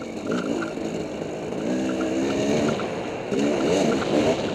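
Dirt bike engine running on a trail ride, its revs climbing and dropping several times as the throttle is worked, with a longer climb near the end.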